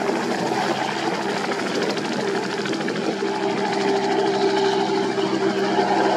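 Piston engine and propeller of a biplane in flight, running steadily and growing a little louder in the second half.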